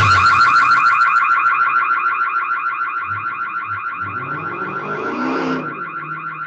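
Electronic alarm sounding: a loud, rapidly pulsing high tone, steady in pitch, slowly getting quieter over the last few seconds.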